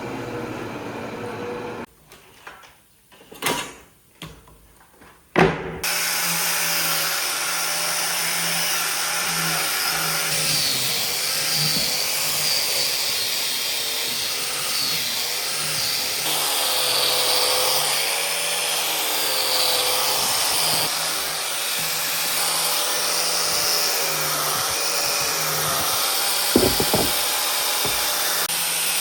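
A power tool running steadily on wood. It stops about two seconds in, a few knocks follow, and it starts up again and runs on with a wavering whine.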